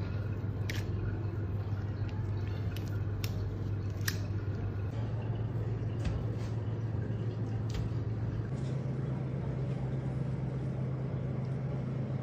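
Wet squishing and sharp little clicks of hands working a raw fish fillet in an oily marinade, then pressing it into a tray of seeds to coat it. A steady low hum runs under it and steps up in pitch twice.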